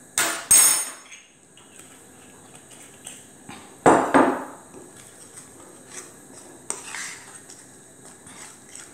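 Metal utensil clinking and scraping against a bowl while stirring flour, egg and milk into a batter: sharp clinks in pairs right at the start and again about four seconds in, a weaker one near seven seconds, with light taps between.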